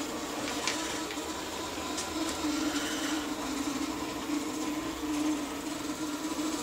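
Steady mechanical hum at a low-middle pitch, wavering slightly, with a couple of faint clicks in the first two seconds.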